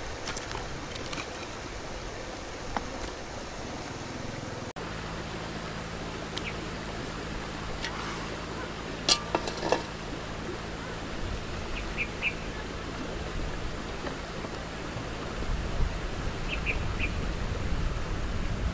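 Steady outdoor noise around a small wood cooking fire, with sticks knocking as firewood is pushed in under the pot near the start. About nine seconds in, a short cluster of sharp knocks comes as a metal wok is handled on the stone stove, and a few short high chirps follow later.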